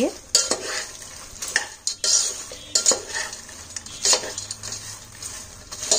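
Spoon stirring a panful of popcorn in a non-stick frying pan: the popped corn rustles and tumbles, with irregular scrapes and taps of the spoon against the pan.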